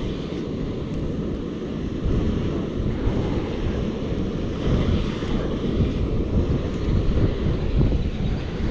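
Wind buffeting the microphone: a dense, uneven low rumble.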